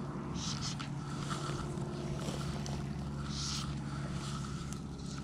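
Steady low motor hum with a fixed pitch throughout, and short hissing swishes of fly line through the air and rod guides as it is stripped and cast, about half a second in and again a little after three seconds.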